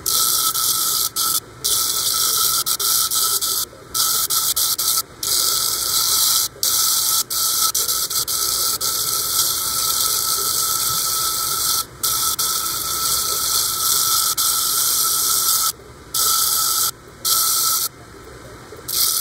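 An Azeztulite crystal ground against the spinning, water-fed disc of a flat lap, giving a loud, high-pitched grinding hiss and squeal with a steady whine under it. The sound cuts out abruptly for brief moments about ten times, then comes back.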